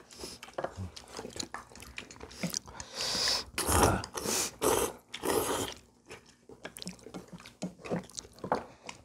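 Several people eating kimchi kalguksu noodles: chewing, with noisy slurps of noodles a few seconds in, and small clicks of chopsticks against bowls.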